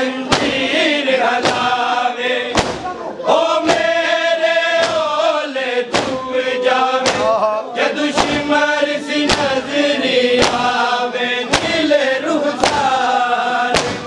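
Mourners chanting a noha together, with sharp rhythmic matam strikes, hands beating on chests, about once a second.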